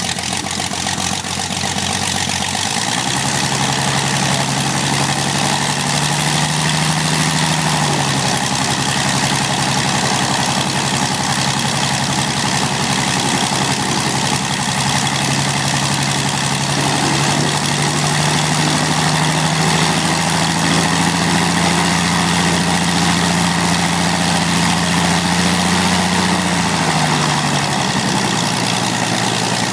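Jabiru 3300 air-cooled flat-six aircraft engine with a Prince propeller, running on the ground on its first engine run. Engine speed picks up about three seconds in, settles lower around eight seconds, rises again from about fifteen seconds and drops back near the end.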